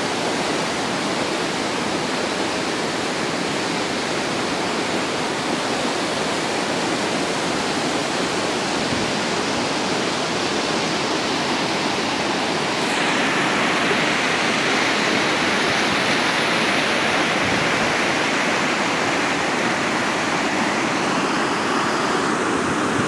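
Rain-swollen, muddy river rushing fast in flood: a steady rush of water that grows a little louder and brighter about halfway through.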